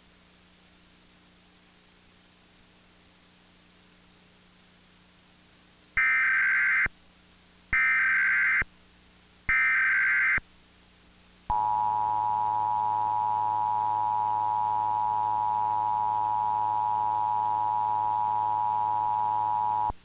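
Emergency Alert System tones: after a few seconds of faint hum, three one-second bursts of the SAME digital header, data tones near 1.5–2 kHz, then the EAS two-tone attention signal, two steady tones near 850 and 960 Hz sounding together, held for about eight seconds before cutting off.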